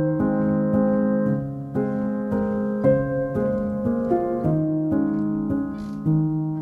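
Background music on piano, a new note or chord struck about every half second and left to ring.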